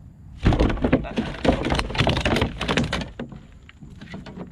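A freshly caught flounder flopping and slapping against the plastic deck of a kayak: a rapid flurry of thumps and knocks starting about half a second in and dying down after about three seconds.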